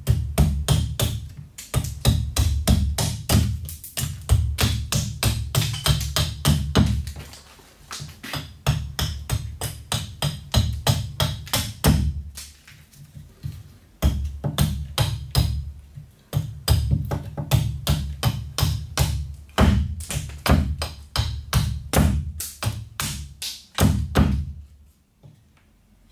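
Robin Wood carving axe chopping a wooden spoon blank on a tree-stump chopping block: quick chop after chop, several a second, each a sharp knock with a dull thud, in runs broken by short pauses. The stops are where the blank is turned between runs of cuts.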